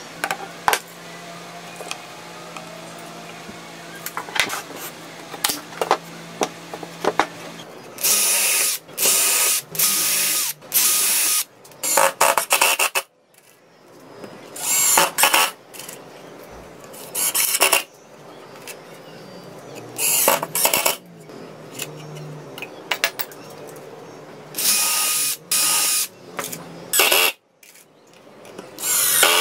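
Light clicks and handling of corner clamps. Then, from about eight seconds in, a cordless drill runs in many short bursts with brief pauses, drilling into and driving screws into plywood panels.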